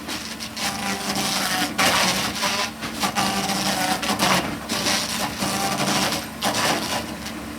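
Bark being scraped and stripped from a hard maple log, a rough rasping that comes in irregular surges over a steady low hum.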